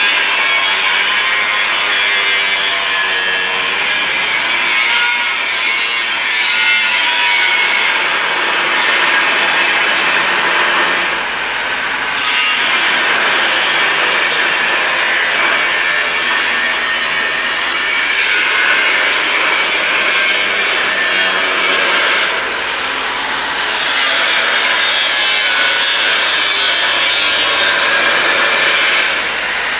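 Electric grinder running and grinding against metal: a loud, continuous rasping hiss with a faint motor whine under it, easing off briefly three times.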